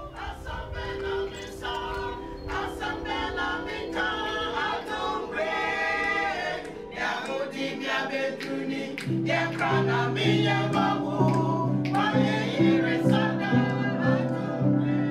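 Choir singing a slow, emotional vocal piece; sustained low notes join the voices about nine seconds in.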